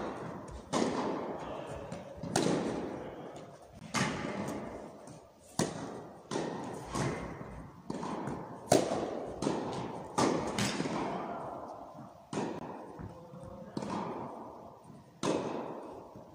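Tennis rally: a run of racket strikes and ball bounces about every one to one and a half seconds, each hit echoing through a large indoor hall. The exchange stops near the end.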